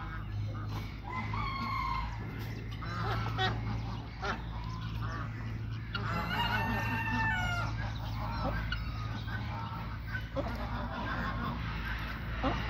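A flock of Indian peafowl making many short, overlapping calls and clucks, some falling in pitch, over a steady low hum.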